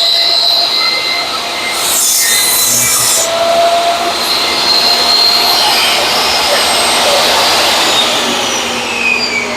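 DeWalt contractor table saw running with its dust collector, the blade cutting through a board on a crosscut sled about two seconds in. Near the end the saw's pitch falls as it winds down.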